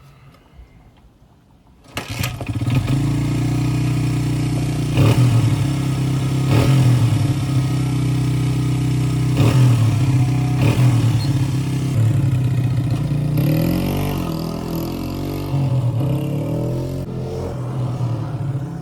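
1999 Honda XR100R's single-cylinder four-stroke engine starting about two seconds in, then running with several quick throttle blips. Its pitch rises and falls around two-thirds of the way through, the freshly rebuilt carburettor and set timing letting it run cleanly.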